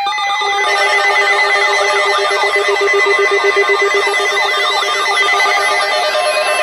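A dense mix of electronic alarm tones: several siren-like pitches waver up and down about twice a second over a fast-pulsing, ringing lower tone. Near the end a steady beep tone and a pulsing higher tone join in.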